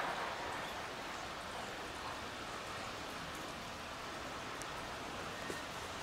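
Steady hiss of light rain falling, with a faint knock near the end.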